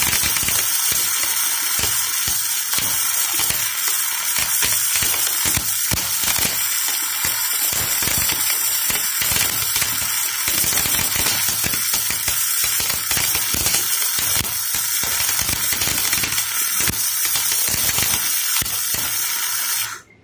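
Electric arc welding on a small pipe: the arc crackles steadily with a dense run of small pops, then cuts off abruptly near the end as the arc is broken.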